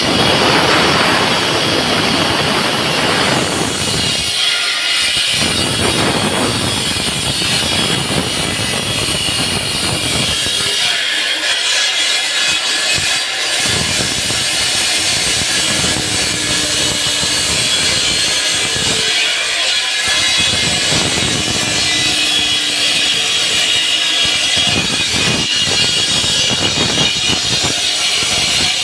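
Concrete-cutting saw running and cutting through a concrete slab: a loud, steady grinding whine whose deeper part comes and goes as the blade works.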